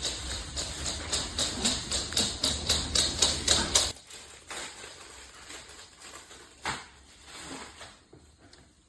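Sun conure's beak nibbling and cracking corn kernels: quick sharp clicks about four a second, growing louder, that stop abruptly about four seconds in, then a few faint clicks and one more near the end.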